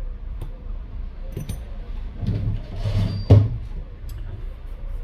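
Handling noises from phone repair work on a bench: scattered light clicks and rustling, with a louder spell of handling about two seconds in that ends in a sharp knock, over a steady low hum.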